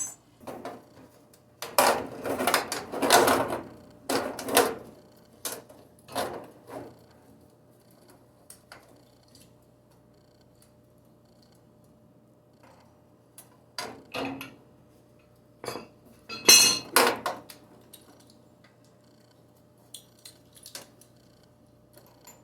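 Metal parts and tools clattering and clinking as they are handled, in irregular bursts with quiet gaps between, the loudest about two seconds in and again about two thirds of the way through. A faint steady hum runs underneath.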